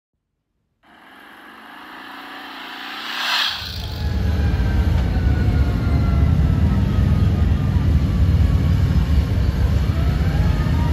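After a brief silence, a rush of noise swells up and leads into the deep, steady rumble of several police motorcycles riding past in a slow column.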